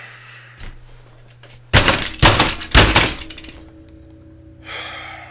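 Three loud thumps about half a second apart, a fist pounding the desk the webcam stands on, with a heavy breath out near the end.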